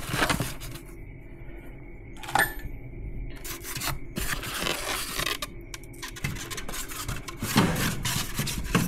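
Metal parts and packaging being handled during unboxing: rubbing and scraping, with a sharp ringing clink about two and a half seconds in and busier clattering near the end.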